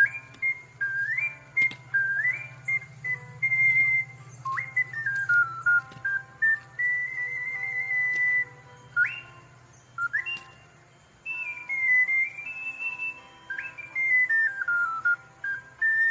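Ocarina playing a high, bird-like melody: held notes and stepped runs down, broken by quick upward slides into notes, over a steady low hum.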